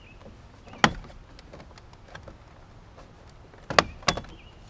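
Plastic retaining clips snapping as the power door lock switch is pulled out of a 1998 Ford Ranger's door panel: one sharp snap about a second in, then two more close together near the end, with a few fainter clicks between.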